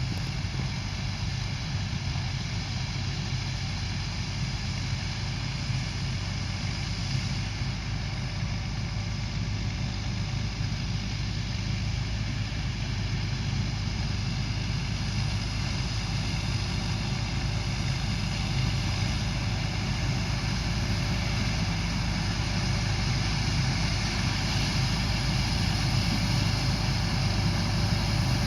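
Diesel engine of heavy harvest machinery running steadily under load, a deep hum with a faint mechanical whine above it, growing slightly louder toward the end.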